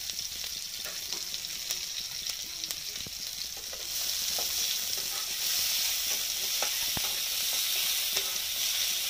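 Sliced onions and chillies sizzling in hot oil in a nonstick wok, stirred with a spatula that scrapes and taps against the pan. The sizzle grows louder about four seconds in.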